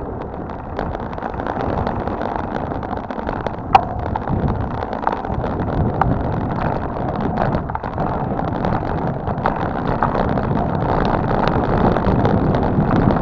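Wind rushing over the microphone of a camera riding on a moving bicycle, with tyre and road noise and small rattles and clicks from the bike. One sharp click stands out about four seconds in.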